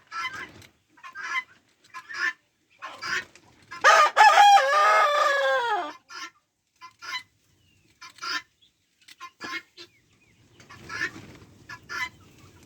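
A rooster crows once, about four seconds in: a loud call of about two seconds that falls in pitch at its end. Short sharp sounds come before and after it.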